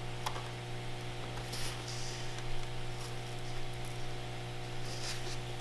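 Steady electrical mains hum, a low buzz with a ladder of higher overtones over a faint hiss, with a couple of soft rustles of handling.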